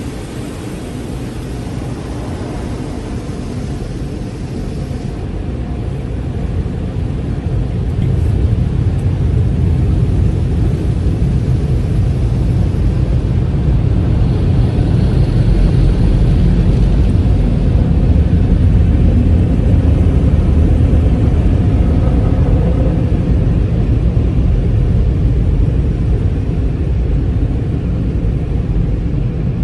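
Car wash machinery running: a continuous wash noise with a deep rumble that grows louder about eight seconds in and then holds steady.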